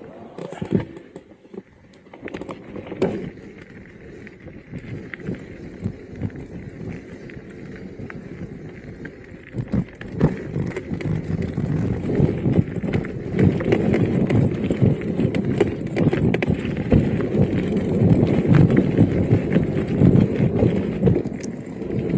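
Electric mountain bike riding over a rough trail: tyre rumble and rapid knocks and rattles from the bike over bumps. It gets louder about ten seconds in as the ride picks up.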